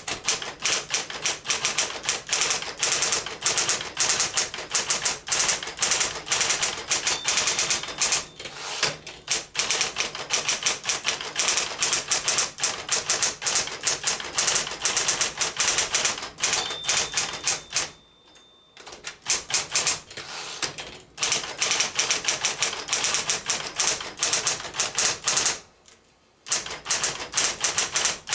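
Smith-Corona Coronet electric portable typewriter being typed on fast, a dense run of rapid key strikes with two short pauses, the machine running smoothly on fresh drive belts. A brief high ringing tone sounds twice, about ten seconds apart.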